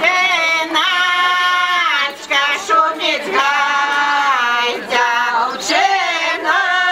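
Women's folk choir singing a Belarusian folk song without instruments: several voices together holding long notes, in phrases broken by short breaks for breath every second or two.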